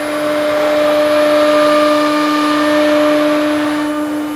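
ATC CNC router spindle running at a steady pitched whine while its cutter routes a wooden panel. The noise of the cut swells through the middle and eases near the end.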